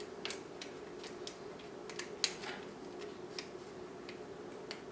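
Faint, irregular clicks and light scrapes of a small metal spoon against a stainless steel food ring as it presses soft ice cream into the mold, the sharpest click a little over two seconds in, over a low steady hum.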